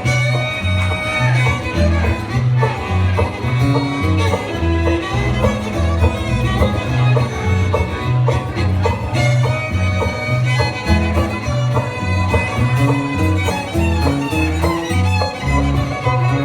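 Bluegrass band playing an instrumental break between verses: fiddle carrying the melody over banjo and guitar, with a bass line keeping a steady beat.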